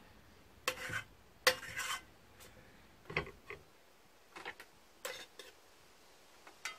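Metal cutlery scraping and clinking against a plate and an enamel cooking pot as thick cheese spread is scraped out and spread on bread: a series of short scrapes and clinks about once a second, the loudest about a second and a half in.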